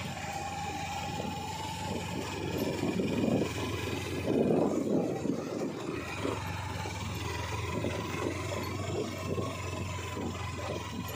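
Motorcycle engine running steadily at low speed while riding over a rough, rocky dirt track, with uneven knocks and rattles from the bumps.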